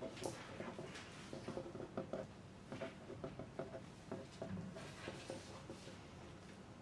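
Exam-room ambience: many pencils scratching and tapping on paper at desks, with now and then a short rustle of paper.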